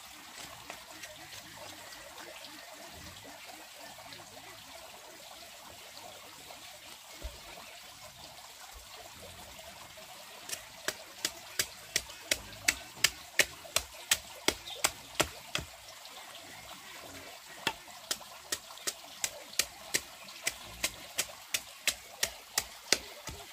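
Steady trickle of running water. Two runs of sharp, evenly spaced knocks, about two to three a second, start about ten seconds in and are the loudest sound.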